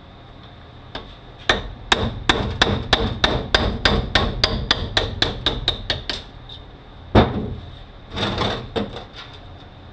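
Hammer driving a roll pin out of a Mazda six-speed manual transmission, about twenty quick metal-on-metal strikes that speed up as they go. Then one harder blow and a short clatter.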